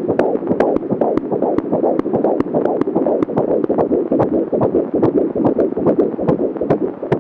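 Fetal heartbeat at 16 weeks picked up by a handheld fetal Doppler: a fast rhythmic whooshing pulse of fetal blood flow. Sharp clicks mark the baby's heart valves opening and closing.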